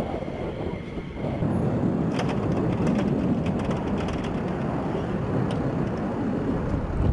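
Wind rumbling on the microphone. A steady high whine runs through the first second and a half, and scattered light clicks follow.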